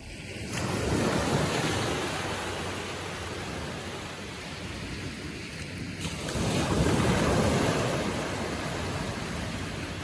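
Gentle surf from a calm sea: small waves breaking and washing up a sandy beach, two swells of wash about five seconds apart, each rising and then fading away.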